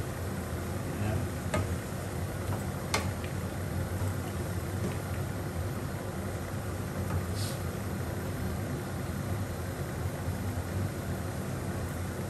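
A wooden spatula stirring food in a nonstick frying pan on a gas hob, with sharp taps about 1.5 and 3 seconds in and a short hiss a little past halfway. Under it all runs a steady low mechanical hum, the loudest sound throughout.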